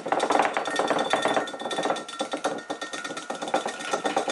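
Dried yellow rocket (wild mustard) seeds and husks shaken in a mesh screen over a plastic jug, making a fast, uneven rattle as the seeds are sifted from the chaff.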